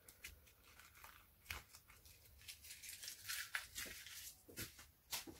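A thin clear plastic stencil sheet crinkling and crackling faintly as it is handled and peeled, with a few sharp clicks about one and a half seconds in and near the end.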